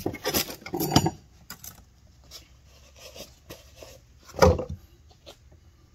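Light clinks and rubbing from a metal depth-gauge tool being laid against a chainsaw chain on a wooden workbench, with one louder knock about four and a half seconds in.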